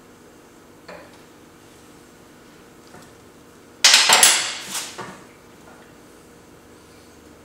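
Metal tools or parts clattering against metal: a sharp clang about four seconds in, then a rattle that dies away within about a second. A faint click comes about a second in.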